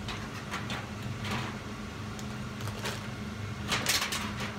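Scattered light knocks and clatter of kitchen items being handled at the stove, with a quick cluster of knocks near the end, over a steady low hum.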